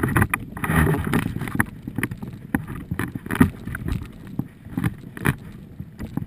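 Wind and water noise aboard a Thistle sailing dinghy under way: uneven low buffeting and splashing, broken by scattered sharp knocks.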